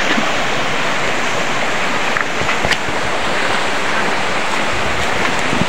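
Steady rush of water from a shallow, rocky mountain stream, an even noise with a couple of faint taps midway.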